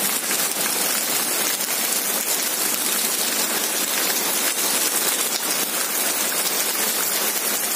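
Steady, dense hiss of heavy rain with faint fine pattering, even in level throughout.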